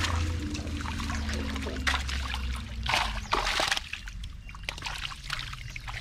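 Water splashing and dripping as a wet fishing net is hauled and handled in shallow stream water, in several separate splashes with a longer one about three seconds in, over a steady low rumble.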